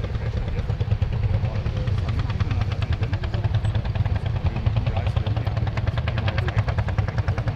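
Several Lanz Bulldog single-cylinder hot-bulb tractor engines running together, a loud, steady chugging. A fast, even knocking stands out from about two seconds in.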